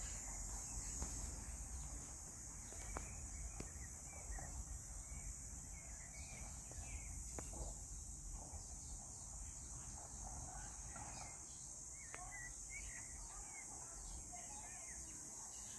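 Garden ambience: a steady high insect drone with faint, scattered bird chirps and a low rumble underneath.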